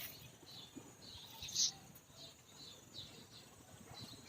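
Faint, short, high bird chirps scattered through a quiet stretch, the clearest one about one and a half seconds in.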